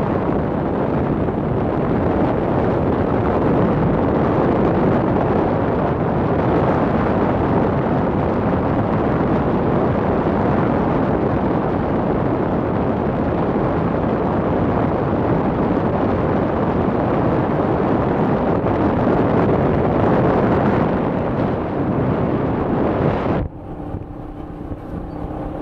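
Wind buffeting the microphone of a moving motorcycle, with the bike's engine running underneath. Near the end the wind noise drops away suddenly for about two seconds and a steady engine hum comes through, then the wind rush returns.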